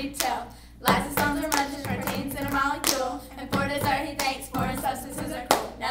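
Several sharp hand claps, about one a second, by a few people clapping together, with girls' voices rapping between them.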